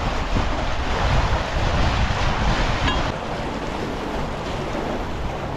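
Canal lock filling: water rushing and churning into the chamber through the open paddles, a steady rushing noise that eases a little after about three seconds.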